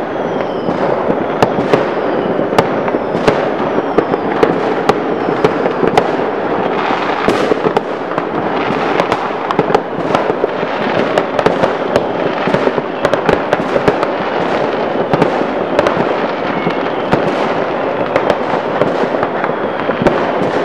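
Massed fireworks going off all over a town: a continuous dense crackle of firecrackers with sharp bangs several times a second. A few falling whistles sound in the first few seconds.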